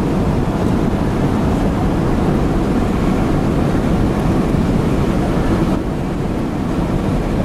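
Steady road and engine noise heard inside the cabin of a car driving along a highway.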